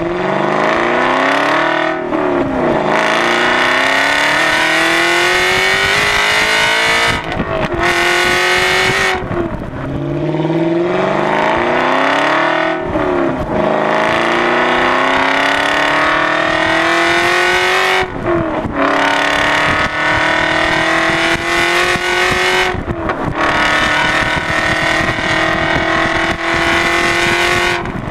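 Aston Martin V8 Vantage Roadster's V8 engine, running through a Larini sports exhaust, accelerating through the gears. The pitch climbs steadily in each gear and drops sharply at each of several upshifts.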